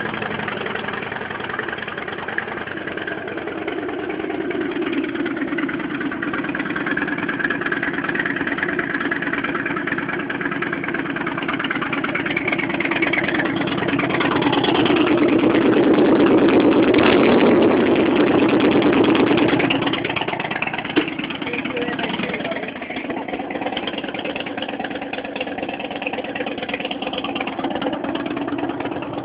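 V-twin motorcycle engines idling, swelling louder for several seconds about halfway through, then settling back to a steady idle, with one sharp click shortly after.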